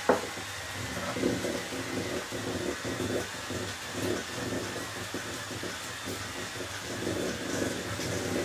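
Handheld electric mixer running, its beaters whipping butter and powdered sugar into a soft cream in a metal bowl, with an uneven, stuttering rattle as they work through the mixture. A sharp click right at the start.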